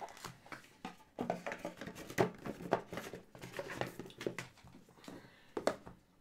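Irregular clicks, taps and rustles of trading cards and their packaging being handled on a tabletop.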